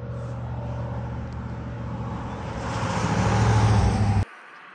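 An engine running with a steady low hum, growing louder toward the end, then cut off suddenly about four seconds in.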